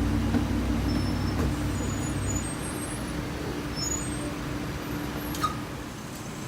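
A road vehicle's engine rumbling close by, then fading away about two and a half seconds in, over a steady background hiss.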